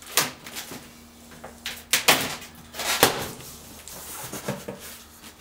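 Cardboard flaps of a shipping box being pulled open and the packing handled: a series of sharp scrapes and rustles, the loudest about two and three seconds in.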